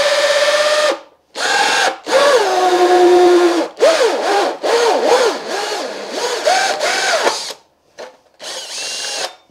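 Makita cordless drill turning a 70 mm hole saw through a carbon fibre tunnel-top panel backed by a wooden board. The motor whine rises and falls as the trigger is eased on and off, over the hiss of the cut. It stops and restarts several times and cuts off near the end.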